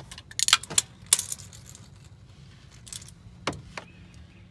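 Light metallic clinks and rattles of hand tools being handled: a quick cluster in the first second, then a few single clicks later on.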